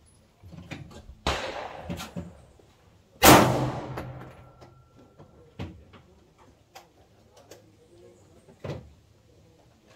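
Two 9mm pistol shots from a Canik handgun, about two seconds apart, the second louder, each followed by a long echoing tail. Lighter clicks and knocks come between and after them.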